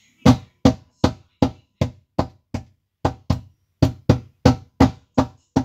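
Rapid knocking on a panelled door, about three sharp knocks a second in an uneven rhythm.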